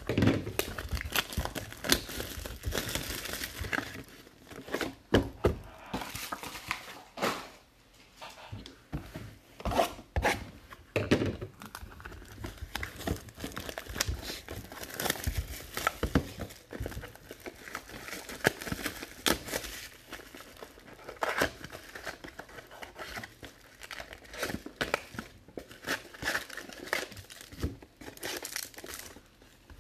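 Plastic wrapping on a trading card box crinkling and tearing as it is unwrapped by hand, an irregular run of crackles and rustles.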